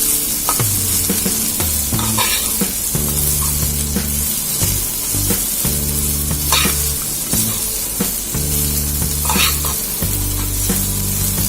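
Masala-coated chopped okra frying in hot groundnut oil in a pan: steady sizzling, with a few short scrapes of a spatula stirring it. Background music with a low bass line runs underneath.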